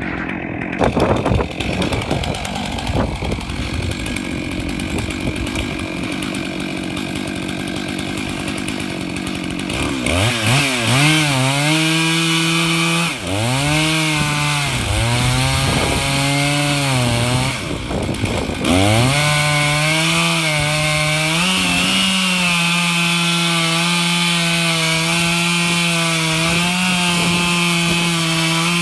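Stihl MS 661 two-stroke chainsaw driving a Granberg Alaskan chainsaw mill through pine. It runs rough and unsteady for about ten seconds, then revs up to a high, steady scream under load, its pitch sagging briefly a few times before recovering.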